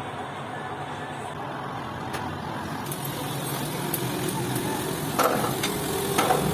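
Steady low background rumble, with a few light clicks and knocks, the loudest about five and six seconds in.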